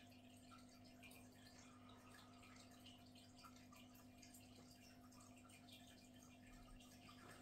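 Near silence: a faint steady hum with light water drips from the running aquarium.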